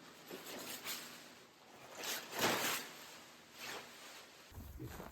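Rustling, scraping noises in several short bursts, the loudest about two and a half seconds in.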